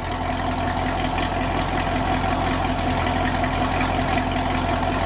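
2021 Camaro SS 1LE's 6.2-litre LT1 V8 idling steadily. It breathes through 1-7/8-inch Speed Engineering long-tube headers, catless 3-inch piping into an X-pipe and the stock NPP dual-mode axle-back mufflers.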